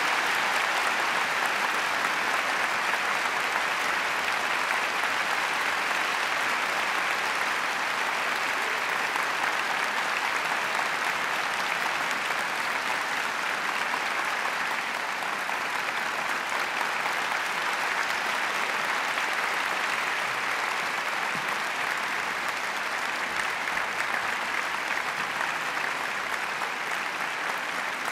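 Audience applauding after a classical piece has ended: dense, steady clapping that eases slightly in loudness later on.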